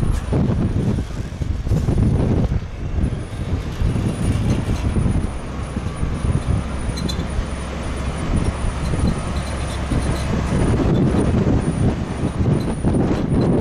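International DT466 7.6-litre inline-six turbo diesel of a 1992 International 2554 spreader truck running as the truck drives slowly, a steady low rumble.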